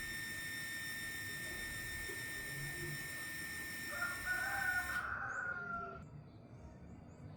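One long animal call, about two seconds, starting about four seconds in, over a steady high whine that cuts off suddenly just before the call ends.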